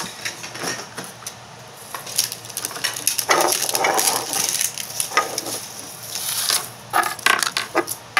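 Plastic toy packaging crinkling and crackling as it is handled and unwrapped, in irregular rustling stretches with sharp clicks.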